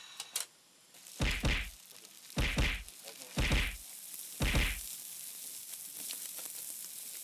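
Tongs whacking gizzard shad on a fire grill four times, about a second apart, each whack with a deep thud. A steady sizzle of the fish grilling follows.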